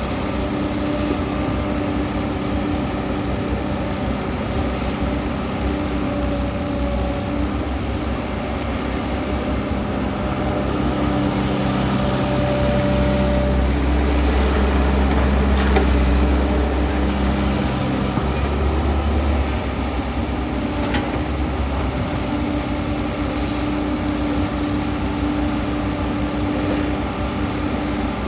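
Engine of a well-digging machine running steadily, working harder and louder for several seconds midway before settling back.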